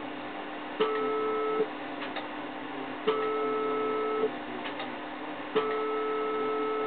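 Three steady electronic beeps of one tone, each about a second long and starting with a click: a radio transmitter being keyed for a power test of a GU43 valve linear amplifier. A steady hum runs underneath, which the operators call a loud growl from the amplifier.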